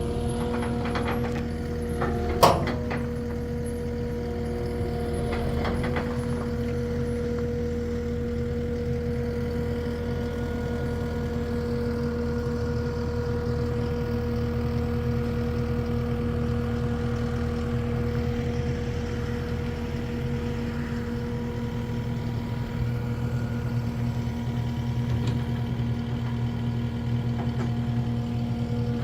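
A heavy vehicle engine runs steadily. There is one sharp, loud metallic clank about two seconds in and a few lighter knocks over the first several seconds.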